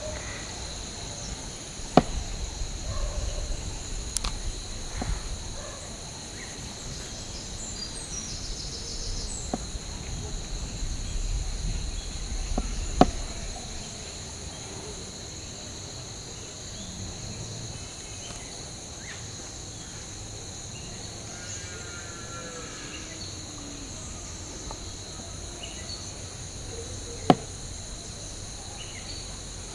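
Steady high-pitched insect drone, with soft handling sounds of dough being pressed and patted on a floured wooden board. Three sharp knocks stand out, about 2 seconds in, about halfway and near the end.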